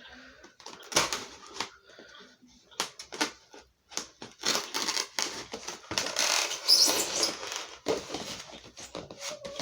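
Packing tape being cut and a cardboard box handled: irregular clicks, scrapes and rustling, busiest in the second half.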